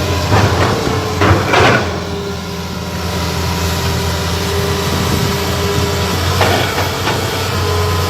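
Excavator's diesel engine running steadily, with a few brief louder sounds about half a second, a second and a half, and six and a half seconds in.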